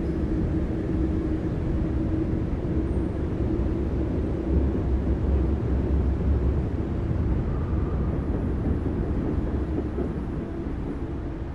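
Steady low rumble of distant city traffic, with a faint steady hum through about the first four seconds.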